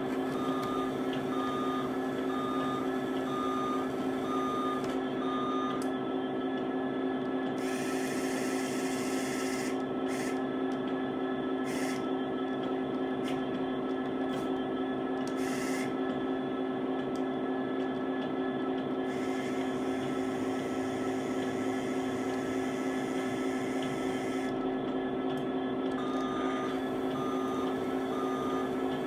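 Container crane sound effects from a DCC sound module: a steady electric drive hum throughout, with a regular high warning beep, a little over one a second, for the first several seconds and again near the end. In between come patches of hiss and a few short clicks.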